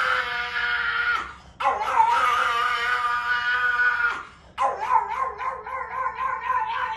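A dog howling in long, steady-pitched howls, with short breaks about a second in and about four and a half seconds in.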